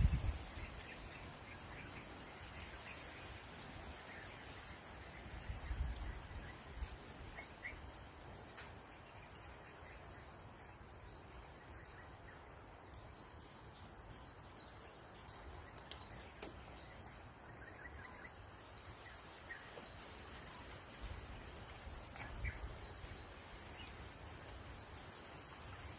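Faint outdoor ambience around a feeding pigeon flock: scattered short, high bird chirps and light ticks. Low rumbles on the microphone come about six seconds in and again near the end.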